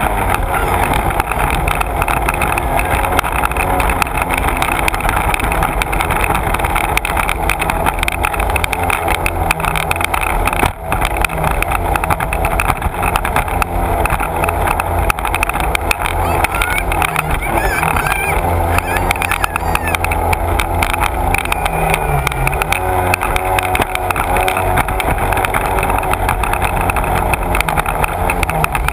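Sea-Doo personal watercraft running at speed, its engine mixed with the rush of spray off the hull. About two-thirds of the way through, the engine note dips and then rises again with the throttle.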